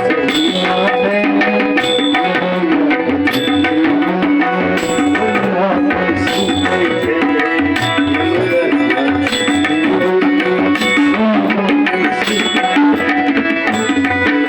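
Tabla playing a fast rhythmic bhajan accompaniment, with sustained tones from a melodic instrument underneath.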